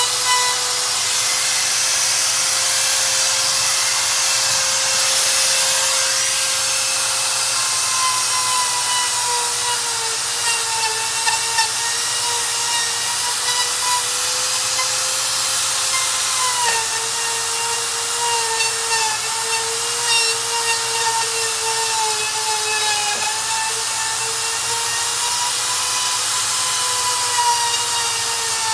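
Electric router running at high speed, cutting rubber tread lugs off a lawnmower tire; its steady whine sags in pitch a few times as the bit bites into the rubber under load.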